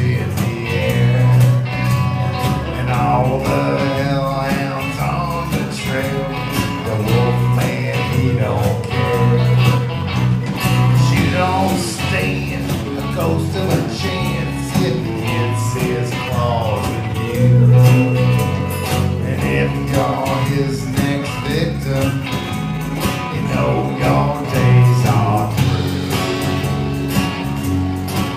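A live rock band playing a country-rock song: strummed acoustic guitar, electric guitars, bass and drums, with a man singing lead.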